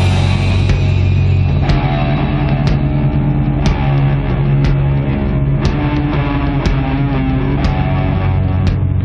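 Instrumental doom metal: heavily distorted guitars and bass hold low, sustained chords while a higher guitar line moves slowly above them, with a cymbal hit about once a second.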